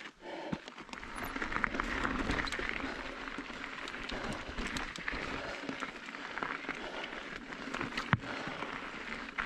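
Mountain bike tyres crunching and rattling over loose gravel and rock on a climb, with many small clicks and knocks and one sharp knock about eight seconds in.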